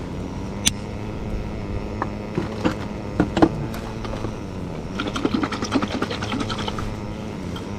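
A hand-held spice grinder grinding seasoning over a salad bowl, giving scattered crunchy clicks. About five seconds in, a dressing bottle is shaken in a quick run of clicks lasting under two seconds. A steady low hum runs underneath.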